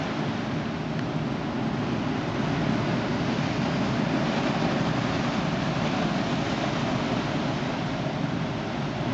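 Steady roar of sea surf breaking on the shore, an even wash of noise with no distinct wave crashes standing out.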